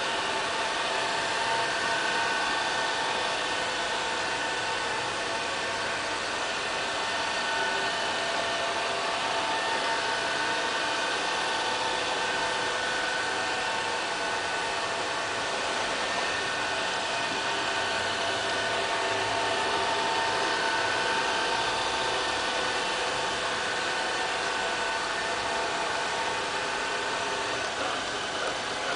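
LL-A320 robotic vacuum cleaner running as it drives across a tiled floor: a steady motor whir with several steady whining tones over an even hiss.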